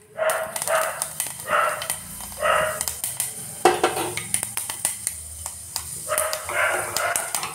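A dog barking in two runs of short barks, with a pause of about two seconds between them, over fenugreek seeds sizzling and popping in hot coconut oil in a saucepan.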